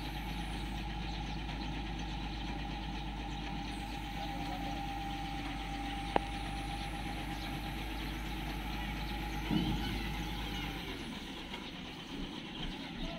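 Truck-mounted crane's diesel engine running steadily with a constant whine over its hum while it holds a suspended load. There is a single sharp click about six seconds in. The hum and whine fall away about eleven seconds in.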